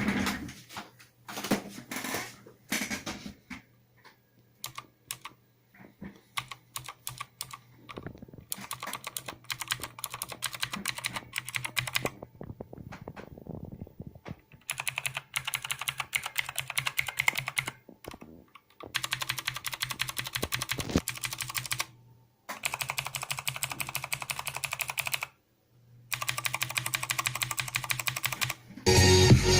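Clicky blue mechanical keyboard switches being typed on: separate key presses at first, then several bursts of fast typing with short pauses between them, the loudest burst near the end.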